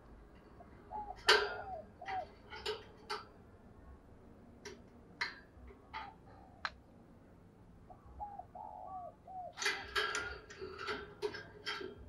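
Spotted dove giving soft, short hooked coo notes, a few about a second in and a group past the middle, among sharp clicks and taps. The loudest click comes about a second in, and a dense cluster of clicks comes near the end.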